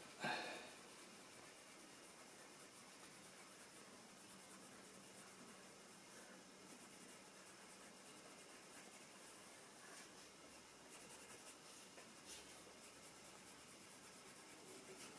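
Faint scratching of a coloured pencil on paper as scales and shading are drawn in short strokes, a little busier in the last few seconds.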